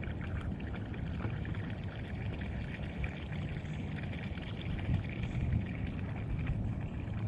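Steady pouring and splashing of water over a low, flickering rumble, unchanging throughout.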